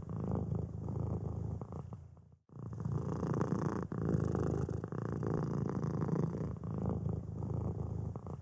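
Domestic cat purring steadily, breaking off for a moment about two and a half seconds in and then going on.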